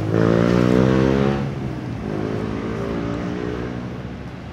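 A motor vehicle's engine passing close by, rising in pitch as it speeds up for about the first second and a half, then fading away with fainter engine noise behind it.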